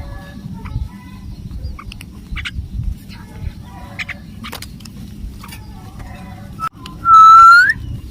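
Myna bird giving short scattered chirps, then one loud, long squawk about seven seconds in that rises in pitch at its end, over a low rumble.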